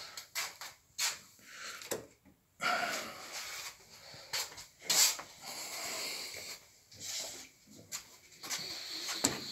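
A dog breathing heavily, amid irregular knocks and rustling in a small room.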